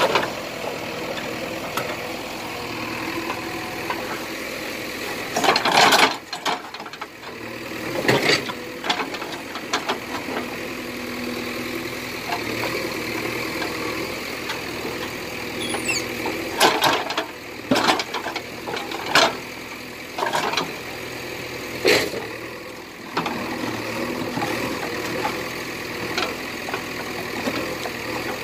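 JCB backhoe loader's diesel engine running steadily while the backhoe bucket digs and dumps earth, with scattered sharp knocks and clatters as it works.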